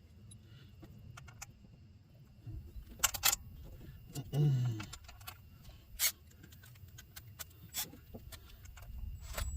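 Scattered sharp metallic clicks and clinks of bolts and parts being handled while a carburetor spacer is test-fitted to an LS throttle body elbow. There is a short low vocal grunt about four and a half seconds in.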